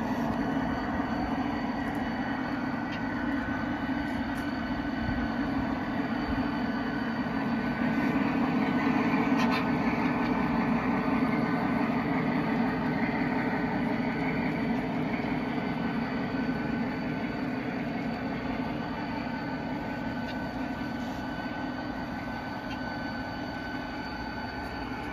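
G scale model container train rolling along outdoor track: a steady rumble of wheels on rails with a thin steady whine above it, growing louder about a third of the way in as the cars pass close, then slowly fading.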